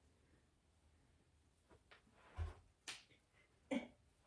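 Faint scattered thumps and taps of a person dancing on a floor: a low thud about two and a half seconds in, then sharper clicks near three seconds and just before four.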